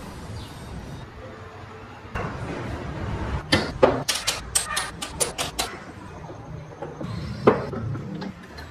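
Carved wooden car parts clicking and knocking as they are handled and set down: a quick run of sharp wooden clacks about halfway through and one more near the end, over a low steady background hum.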